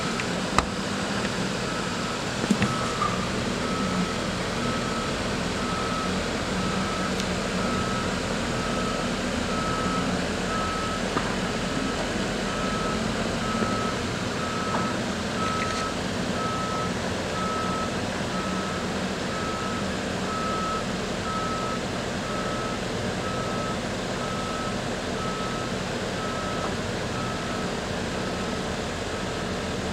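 Reversing alarm of a vehicle on a construction site, beeping about once a second and stopping near the end, over the steady hum of site machinery and street traffic. A couple of sharp knocks in the first three seconds.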